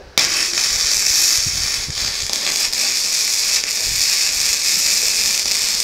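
MIG welding arc striking abruptly just after the start, then crackling steadily as a bead is run on a metal plate.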